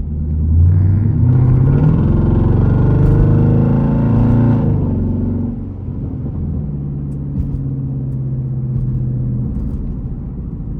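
SRT Jeep's V8 engine accelerating hard, its pitch rising for about four seconds, then letting off and settling into a steady, quieter cruise.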